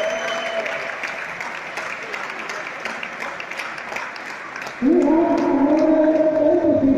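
Hand clapping from a group, then about five seconds in, loud music starts abruptly with steady held notes.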